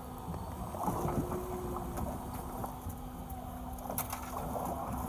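Fishing boat's engine running steadily at a low hum, with choppy water washing against the hull and a couple of sharp clicks about four seconds in.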